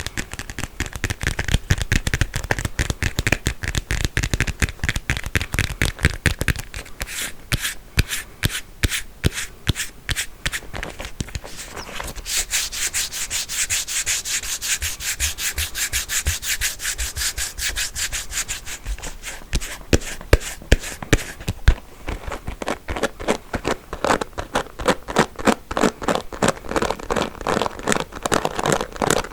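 Comb teeth being rubbed and scratched, a dense run of many small rapid clicks. The sound turns brighter and hissier in the middle stretch, with sharper, more separate clicks near the end.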